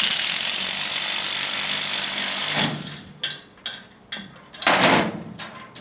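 Cordless impact wrench with a socket driving the screw of a SELF load binder to tighten a load chain, running steadily for about two and a half seconds and then stopping. A few light knocks follow, and a short clatter of metal about five seconds in.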